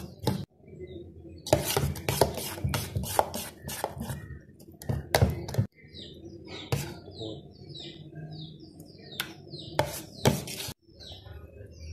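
A metal spoon stirring thick wheat-flour batter in a steel bowl, with irregular clinks and scrapes against the bowl. Birds chirp faintly in the background during the second half.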